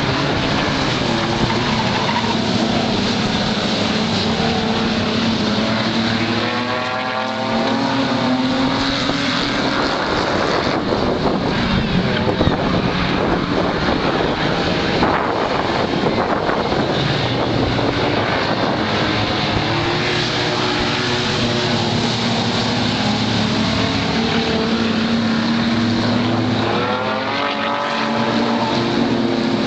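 Several super banger race cars, typically with 3-litre engines, running hard round the track in a continuous loud engine noise. Engine pitch climbs as cars accelerate past, once about a quarter of the way in and again near the end.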